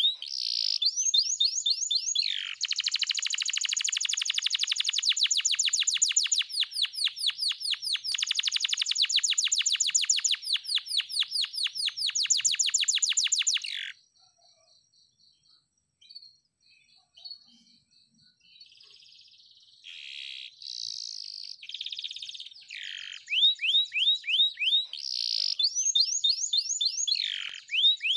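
Domestic canary singing: a long, very fast rolling trill of about ten seconds that cuts off suddenly, then a few seconds of only faint soft notes, before the song resumes with runs of quick downward-sweeping whistled notes.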